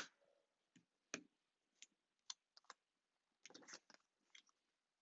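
Faint scattered clicks and taps of paper card pieces being handled and pressed down onto a card base, with a short cluster of them about three and a half seconds in.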